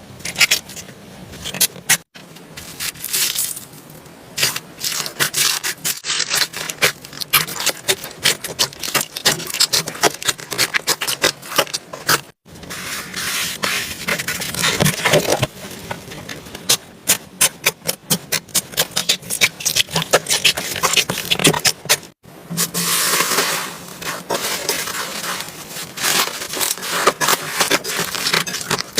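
Slime being squeezed, poked and stretched by hand, giving rapid, irregular crackling clicks and pops with some scraping rub. The sound breaks off sharply three times, about 2, 12 and 22 seconds in, where one clip cuts to the next.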